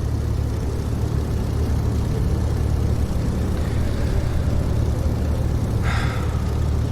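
Small propeller aircraft's engine drone in flight, steady and low, with a brief higher sound about six seconds in.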